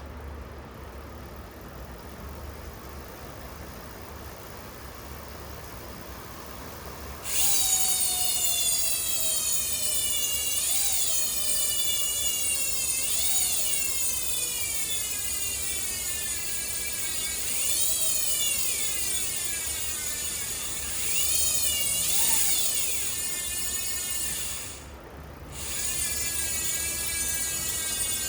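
Industry Nine Hydra rear hub freewheeling: a loud, high, continuous ratchet buzz from its many fine-toothed pawl engagements, starting about seven seconds in. The pitch slowly falls as the wheel slows and jumps back up several times as it is spun up again, with a short break near the end.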